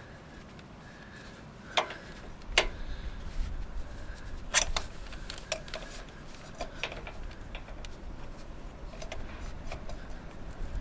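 Hands and a tool handling an oil filter under a car as it is screwed on by hand: a few sharp clicks and taps of metal, the loudest about two seconds in and again near the middle, with smaller ticks after.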